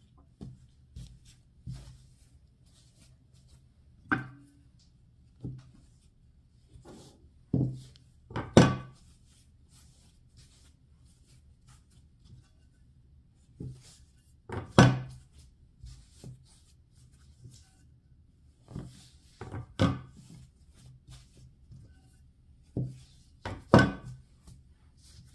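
Scattered thumps and knocks on a wooden surface during kitchen work, some single and some in quick pairs, with the loudest about a third of the way in, just past halfway and near the end. A faint steady low hum runs underneath.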